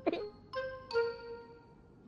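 Light background music: two bell-like mallet-percussion notes, about half a second apart, each ringing out and fading.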